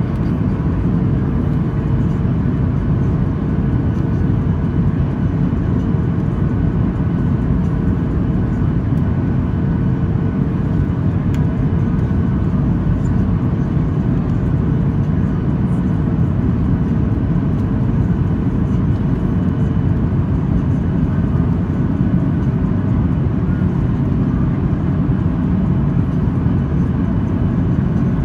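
Steady jet-engine and airflow rumble heard inside the cabin of a Boeing 737-800 with CFM56-7B turbofans, deep and even. A steady hum sits over it and fades out about two-thirds of the way through.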